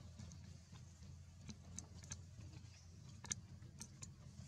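Near silence with a faint steady low hum and faint scattered ticks and clicks at irregular intervals.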